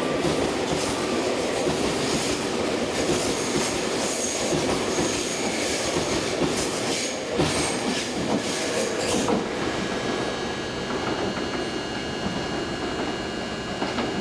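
Tobu 200 series electric train passing through a station, its wheels knocking over rail joints in a run of clacks. The clatter thins out about nine seconds in as the train draws away.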